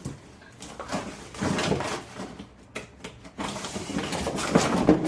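Handling noises while new cooking pots are unpacked: scattered light knocks and clicks, with stretches of rustling and scraping.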